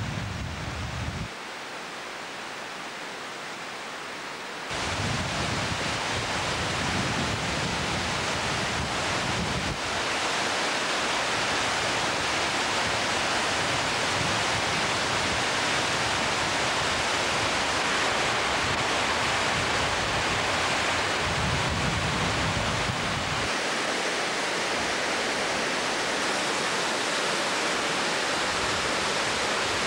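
River water rushing over a weir and down rocky falls, a steady, even rush that steps louder about five and ten seconds in. Wind buffets the microphone with low rumbles at the start, for several seconds a little before ten seconds in, and again near twenty-two seconds.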